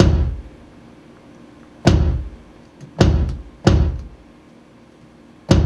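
Programmed kick drum played as a loop: five deep thumps in an uneven, syncopated pattern, each with a sharp attack and a short booming decay.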